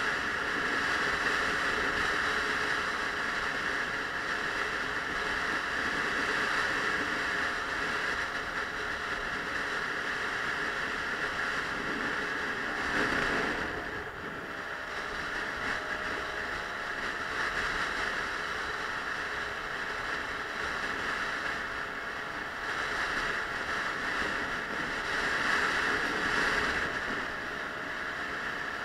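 Wind rushing over the microphone of a moving Suzuki Let's 4 scooter, with the hum of its small four-stroke single-cylinder engine underneath. The engine note dips and picks up again about halfway through.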